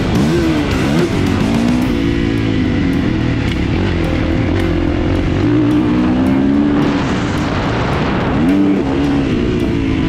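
2021 Kawasaki KX450's single-cylinder four-stroke engine pulling hard under the rider, its pitch rising and falling with the throttle and gearchanges, with a sharp dip and climb about a second in and another climb near the end.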